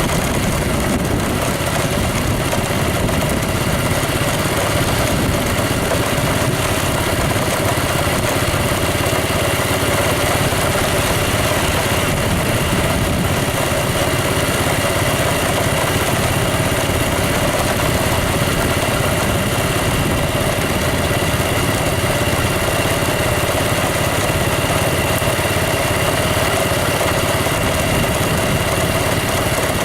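A vehicle engine running steadily and evenly, with no revving or sudden sounds.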